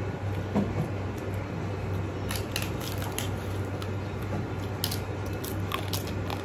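Mouth noises of two people eating rice, daal and pork fry with their hands: chewing, lip smacks and wet squishes of rice worked between the fingers, with a scatter of short sharp smacks in the second half, over a steady low hum.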